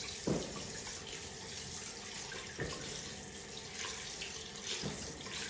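Kitchen tap running into a glass bowl in a stainless steel sink as sardines are rinsed by hand, a steady rush of water broken by three short knocks.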